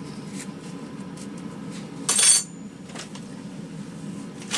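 A short metallic clatter about two seconds in, metal objects being handled and set down on a workbench, over a steady low hum.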